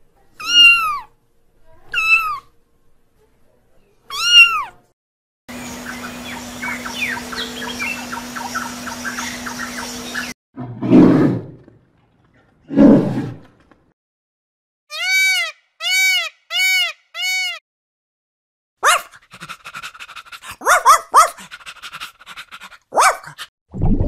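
A run of separate animal calls. It opens with kittens mewing three times, followed by a stretch of steady hum with faint chirps, then two loud, low calls from a brown bear. After that come four identical short high calls, and near the end a quick run of squeaks and chirps.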